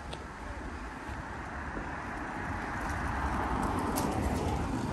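A car driving past on a road, its tyre and engine noise swelling to a peak about three to four seconds in and then fading.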